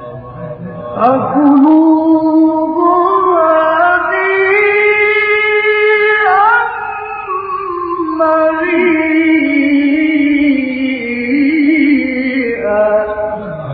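Male reciter's voice in melodic Quran recitation: two long drawn-out phrases of held, ornamented notes, the first starting about a second in and the second after a brief dip in the middle.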